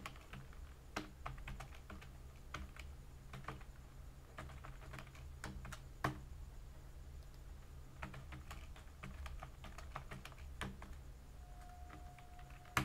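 Typing on a computer keyboard: irregular runs of light keystrokes, with one sharper keystroke about halfway through, over a low steady hum.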